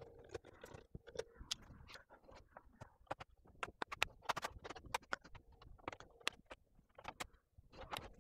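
Plastic bottom cover of an Acer Nitro laptop being pried off: the retaining clips snap loose one after another with sharp clicks, along with scraping and knocks of the plastic case being handled. The clicks come thickest around the middle.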